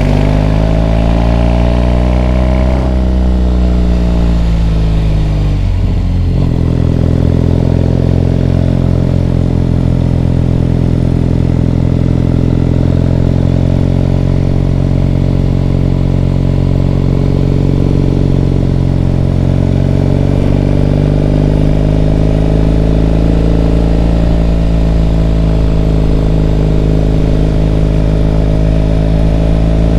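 Triumph Bonneville T100's parallel-twin engine running on the road, revs climbing in the first few seconds, then a gear change about six seconds in with a sudden drop in pitch. After that it holds a steady cruise, the revs rising slowly and easing again near the end.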